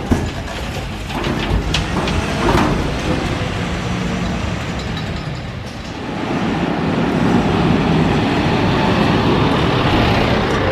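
Mercedes Econic 2635 garbage truck with an MUT rear-load press at work. A metal clank and a few knocks come as a steel container meets the rear lifter, over the truck's running engine and hydraulics. About six seconds in, a steadier, louder mechanical running noise takes over.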